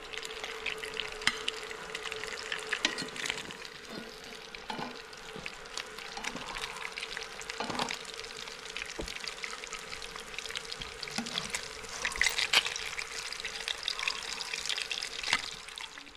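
Pieces of carp frying in hot oil in a pan: a dense sizzle with frequent sharp pops and crackles.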